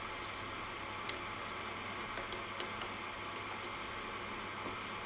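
Pot of herbal drink boiling on the stove over a high flame: a steady hiss with a few sharp, light clicks scattered through it.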